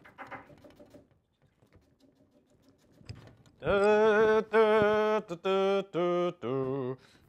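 A man humming a slow tune in long held notes, starting about three and a half seconds in.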